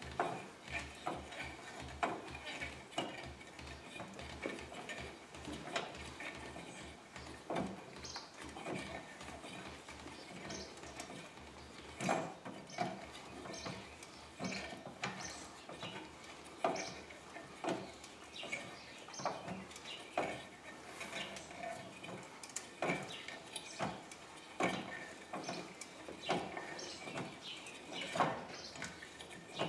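A scissor jack being cranked up by hand with its crank rod, lifting the car: faint metallic clicks and clanks about once a second as the handle turns.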